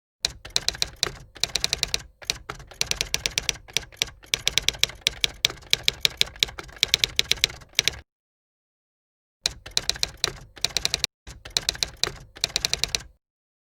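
Rapid typing: sharp keystroke clicks, many a second, in a long run of about eight seconds, then a pause of about a second and a half, then a shorter run of about three and a half seconds that stops abruptly.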